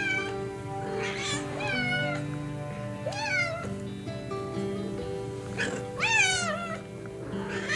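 Domestic cat meowing several times in separate rising-then-falling calls, the loudest about six seconds in, over background music of steady held notes.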